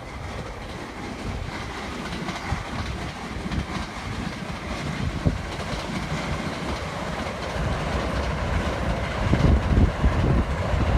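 A train running along the rails, its rumble growing louder toward the end, with wind buffeting the microphone.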